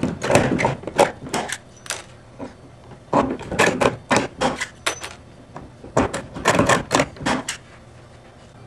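Hand pop-rivet gun setting pop rivets through a RAM mount base into a kayak hull: a run of sharp clicks and snaps as the handles are squeezed and each rivet's mandrel is pulled and breaks off. The clicks come in several clusters with short pauses between, one rivet after another.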